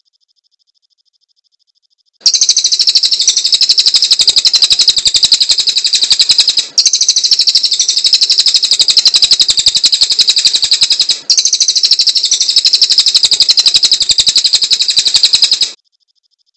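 Cililin songbird singing a loud, very rapid high-pitched trill in three long unbroken phrases, starting about two seconds in, with two brief breaks, and cutting off suddenly near the end.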